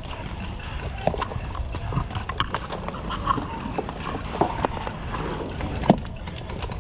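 Footsteps crunching through dry leaf litter and twigs, with brush snapping and scraping: irregular crackles and snaps over a steady low rumble.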